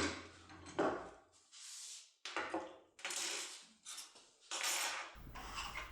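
Small metal parts, lock cylinders and an impressioning lockpick tool, being handled on a work surface: a series of short knocks, clinks and scrapes, about five in a few seconds.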